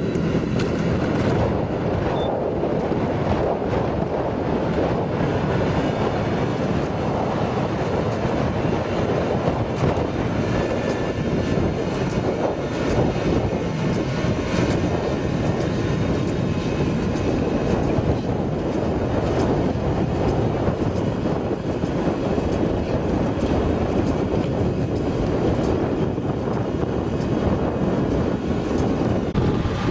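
Steady mechanical rumble of a running engine or vehicle, with scattered light clicks and rattles.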